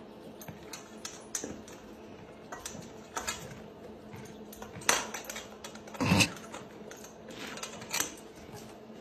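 Scattered clinks and knocks of a metal feed bowl as a horse eats from it, with a heavier knock about six seconds in.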